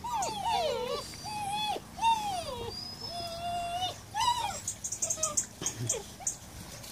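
Seven-week-old German Shepherd puppies whining and yelping in a string of high cries that arch up and fall away, several overlapping at first, with one held longer about three seconds in. A run of light, quick clicks comes in the second half.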